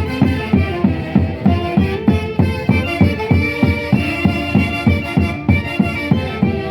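Traditional Andean dance music from a folk orchestra: wind instruments carry the melody over a quick, steady beat.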